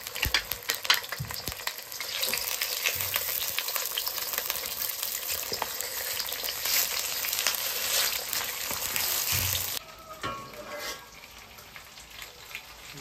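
Zongzi sizzling as they fry in oil in a pan, a steady loud sizzle with several sharp clicks in the first two seconds. About ten seconds in the sizzle drops suddenly to a much fainter level.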